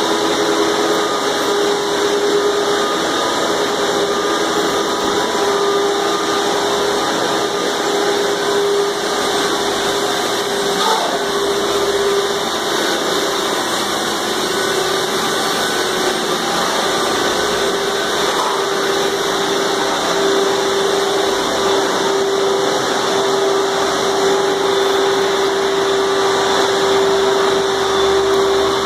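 Wet/dry shop vacuums running steadily, a constant motor drone with a steady hum, as they suck up floodwater.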